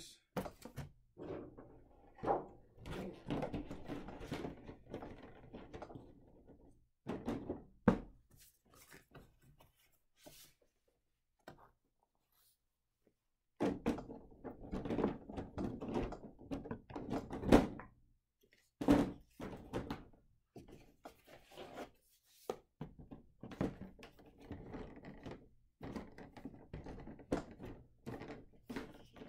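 Cardboard game boxes, lids and boards being handled and set down on a table: an irregular run of thunks, knocks and rustles, with a silent break about a third of the way in.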